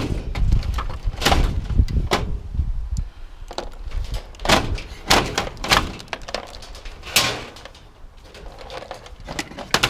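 Scrap metal being handled and pulled apart: a string of irregular clanks and knocks, about eight or nine, with a low rumble during the first three seconds.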